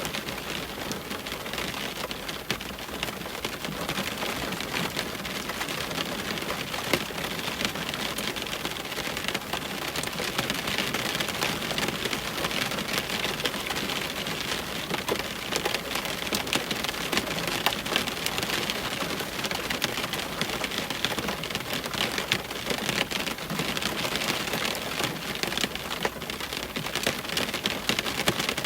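Steady rain on window glass: an even hiss of rainfall with many separate drops ticking against the pane.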